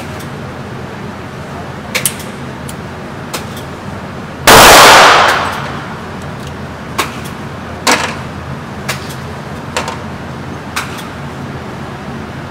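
One very loud handgun shot about four and a half seconds in, echoing for about a second off the walls of the indoor range. Fainter, sharper shots from other lanes crack about eight times around it.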